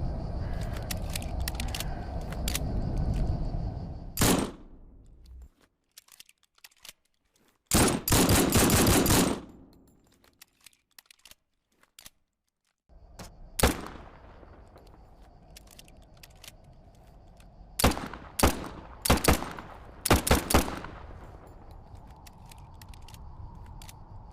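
Gunshots from an M1911 pistol as a sound effect: a single shot about 4 s in, a dense rapid burst lasting about a second and a half, another single shot, then a quick string of shots near the end.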